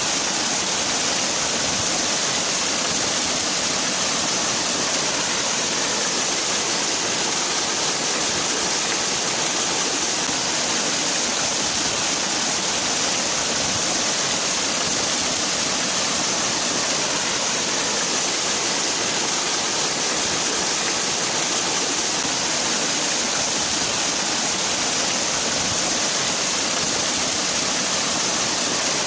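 Waterfall: water falling and splashing in a steady, unbroken hiss, brightest in the high range.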